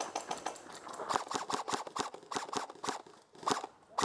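Airsoft guns firing. A quick string of sharp pops at first, then steadier pops about four a second, thinning to a couple of louder single pops near the end.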